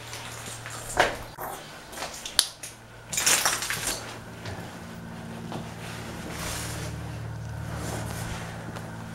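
A few sharp knocks and a scraping rustle from someone moving about a room and handling things, followed by a low steady hum.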